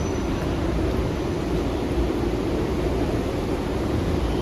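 Steady engine and road rumble heard from inside a moving vehicle.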